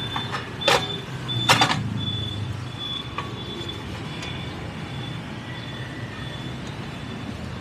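Street traffic running steadily in the background, with two sharp knocks about a second apart near the start and a faint, high, thin tone that comes and goes.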